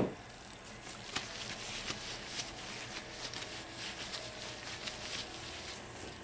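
A single thump as an object is set down on the worktop, followed by about five seconds of crinkly rustling and light clicks of gloved hands handling things.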